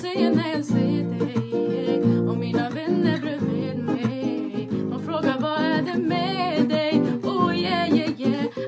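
Women singing a melody with vibrato, accompanied by an acoustic guitar played with chords.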